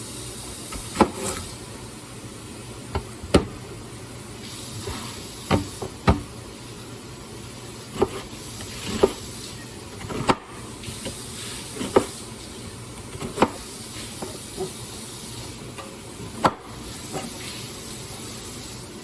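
Steady sizzling hiss of food frying in a pan, with sharp knocks every second or two.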